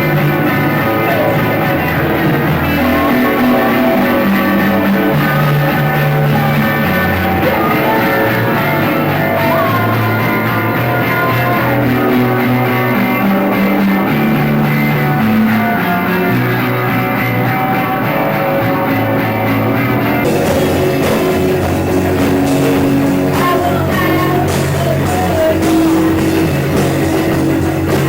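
Rock music led by guitar, with some singing. About twenty seconds in, the sound turns brighter and fuller, as if cymbals or heavier guitar come in.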